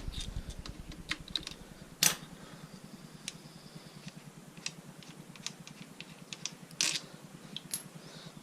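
Scattered light clicks and taps of bolts, small metal parts and hand tools being handled and set down, with two louder knocks, about two seconds in and near seven seconds.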